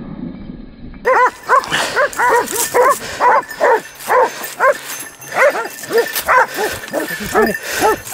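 Black-and-tan hunting hounds barking over a shot wild boar, holding it at bay, in quick repeated barks of about three a second that start about a second in.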